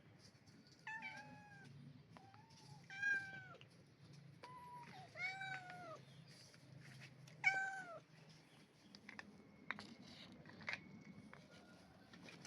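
A cat meowing repeatedly: about six high meows in the first eight seconds, each falling in pitch at the end, followed by a few faint clicks.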